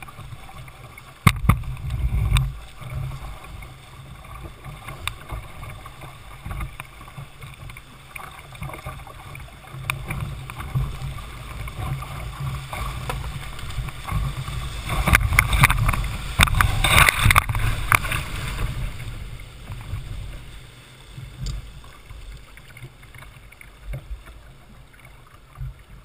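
River whitewater rushing and splashing against the bow of a Jackson Coosa kayak running a rapid, with a low rumble of water on the camera. It is loudest a little past halfway, where waves break over the bow, and eases as the kayak reaches calmer water near the end. There is a sharp knock about a second in.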